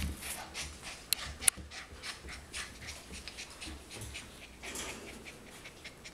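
Four-week-old golden retriever puppies playing with a plush toy: quick, breathy panting and the rustle of the toy and blanket, with two sharp clicks a little over a second in.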